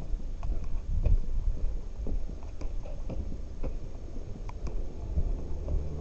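Footsteps of a person walking, about two steps a second, over a low rumble of wind on the microphone or passing traffic.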